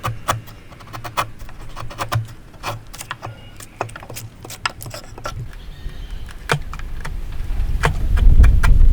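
Irregular light knocks and clicks of hand tools working wood, spaced unevenly. A low rumble builds up over the last couple of seconds.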